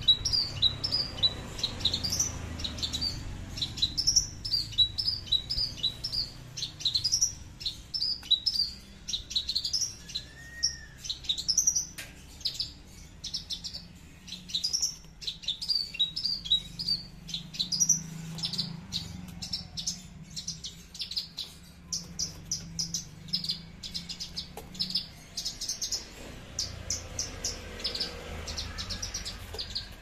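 Caged Javan bush lark (branjangan) singing continuously: a fast, unbroken run of high chirping and trilled notes, packing into a rapid ticking patter near the end.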